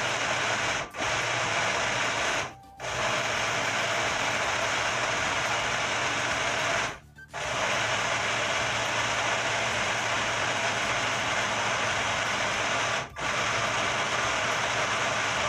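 Personal bullet-style blender motor running, blending a strawberry-banana shake; it cuts out briefly four times as the press on the cup is let up, then starts again.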